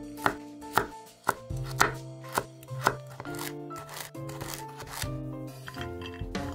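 Kitchen knife chopping sweet potato on a wooden cutting board, a sharp knock about every half second, over background music.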